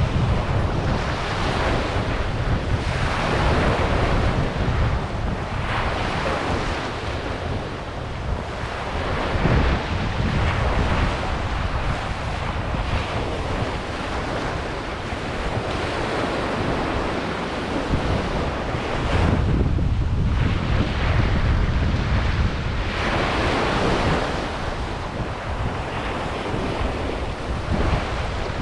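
Ocean waves breaking on a beach, the surf swelling and ebbing every few seconds, with wind buffeting the microphone in low gusts.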